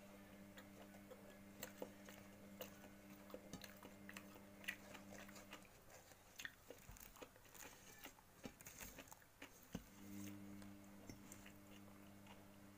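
Faint chewing mouth sounds and soft crackles as Arabic flatbread is torn by hand, over a low steady hum that cuts out about halfway through and returns near the end.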